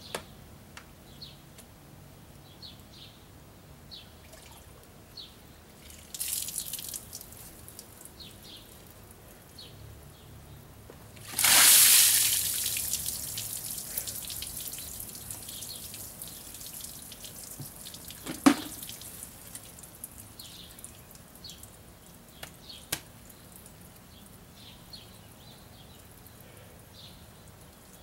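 Liquid poured from a plastic bucket over a costumed head, splashing onto the fur suit and the ground. A short splash comes about six seconds in, then a loud splashing pour about eleven seconds in that trails off into dripping over several seconds. A sharp knock follows a few seconds later, with faint high chirps in the background.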